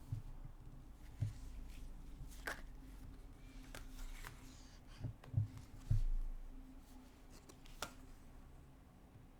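Tarot cards being handled at a table: scattered soft card flicks and slides, with a few low thuds, the loudest around five to six seconds in.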